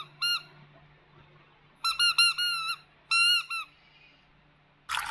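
Squeaky toy being squeezed: short, high squeaks, one near the start, then quick runs of three or four squeaks about two and three seconds in. A brief rustling noise starts near the end.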